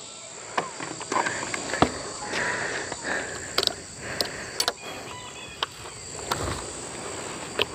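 Insects droning steadily at a high pitch, with scattered short clicks and knocks.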